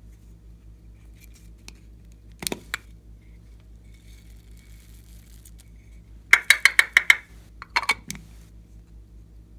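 Sharp clinks and clicks of hard objects knocking together: a pair a couple of seconds in, then a quick run of about seven clinks past the middle and a few more just after, over a faint steady hum.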